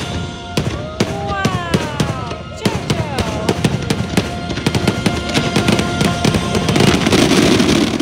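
Fireworks bursting in rapid succession over the show's music. Near the end it builds into a dense, loud crackling barrage that cuts off suddenly.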